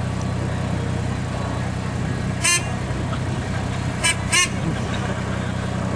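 Bulldozer's diesel engine running steadily, with three short high-pitched toots: one about two and a half seconds in and a quick pair about four seconds in.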